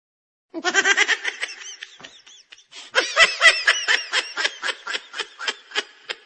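Rapid, high-pitched laughter in two bouts, the second starting about three seconds in: a comic laughter sound effect laid over the scene.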